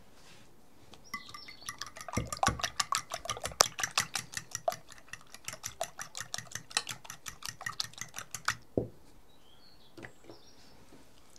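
Eggs being beaten in a glass bowl, the utensil clinking rapidly and evenly against the glass, about five strokes a second. The beating stops about three seconds before the end.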